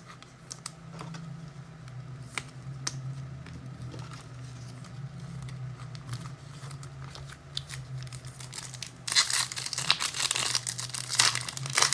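Trading-card pack wrapper torn open and crinkled about nine seconds in, after a stretch of faint ticks from cards being handled. A low steady hum runs underneath.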